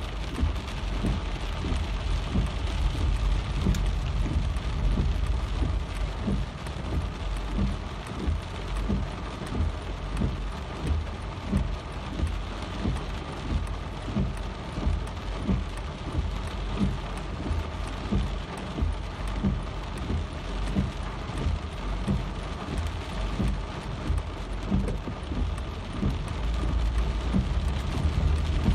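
Rain falling steadily, with a constant low rumble underneath.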